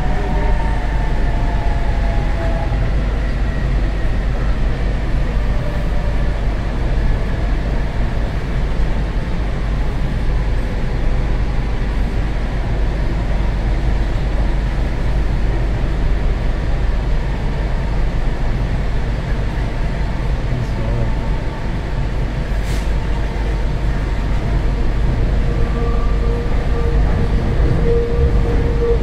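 Metro train running between stations, heard from inside the carriage: a steady low rumble of the train in motion. A faint whine falls away in the first few seconds, and another steady whine comes in near the end.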